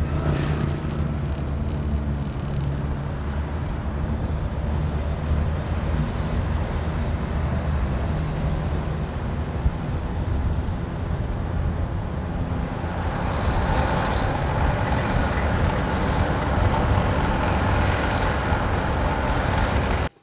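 Engine and road noise of a moving vehicle heard from on board, a steady low hum under a rushing wind noise, growing a little louder over the last few seconds.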